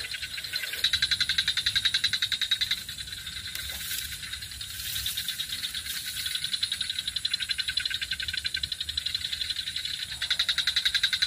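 High-pitched, rapidly pulsing trill from a calling wild animal, rising and falling in swells of a few seconds, loudest early on and again near the end.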